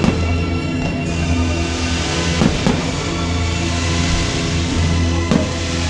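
Loud music with a heavy bass line playing during a fireworks display, with sharp firework bangs cutting through at the start, twice in quick succession about two and a half seconds in, and once near the end.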